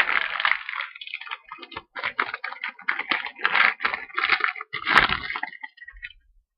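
Foil trading-card pack wrapper being torn open and crinkled: a dense run of irregular crackles and rustles with sharp snaps, dying away near the end.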